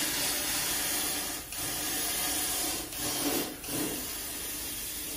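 High-pressure spray gun hissing as cavity (inner) wax is sprayed through a long nozzle hose inside a vehicle frame rail. The hiss breaks off briefly a few times.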